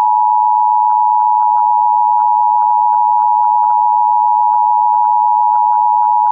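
Emergency Alert System attention signal: two steady tones sounded together as one loud, unbroken beep, marking the start of an emergency alert broadcast.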